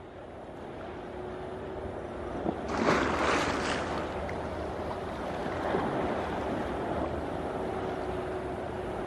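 Steady hiss of rain with wind buffeting the microphone, swelling into a louder gust about three seconds in, over a faint steady hum from the airport apron.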